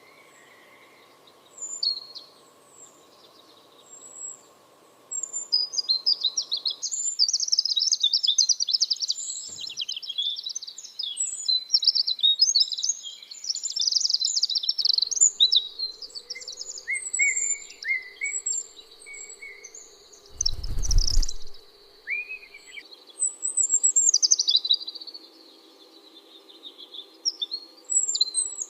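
Small birds chirping and twittering in quick, high calls, thickest through the middle stretch. About two-thirds of the way through comes a short, loud, low rumbling thump.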